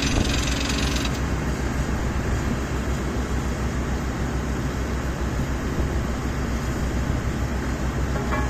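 JK 590 crawler drill rig running while drilling with a 5-inch down-the-hole air hammer: steady loud machine noise with rapid low pulsing from the hammer. A high air hiss cuts off about a second in.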